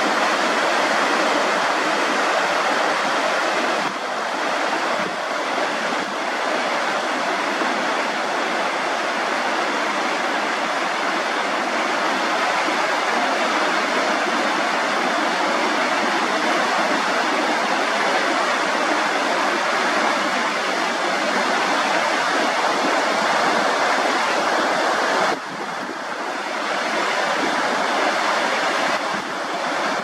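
Fast river water rushing over rocks and down a small stepped cascade, a loud, steady rush. About 25 seconds in it drops suddenly and comes back up over the next few seconds.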